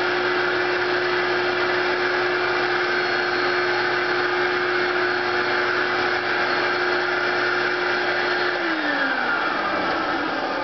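Eureka 500 series straight-suction canister vacuum running with a steady whine, then switched off about three-quarters of the way through, its motor pitch falling as it spins down. The owner takes the sound to mean the motor bearings need oiling or greasing.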